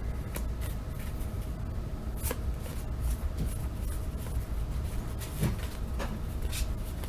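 Baseball cards from a wax pack being handled and flipped through: scattered light clicks, taps and rustles of card stock, over a low steady hum.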